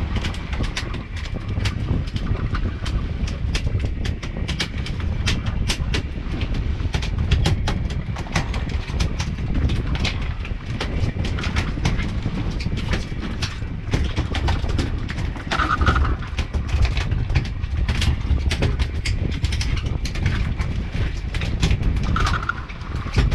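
Boat noise: a steady low rumble with frequent sharp, irregular knocks and slaps, and two short high beeps near the end.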